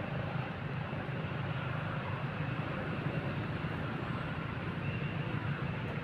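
Steady low rumble with a fainter hiss above it, unchanging throughout.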